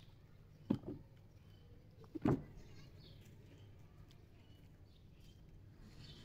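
A spoon knocking against a plate while eating: two short knocks about a second and a half apart, over faint bird chirps.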